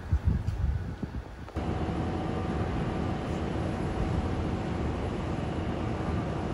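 Outdoor ambience with wind rumbling on the microphone. About a second and a half in, it cuts to a steady, even city hum with a few faint steady tones in it.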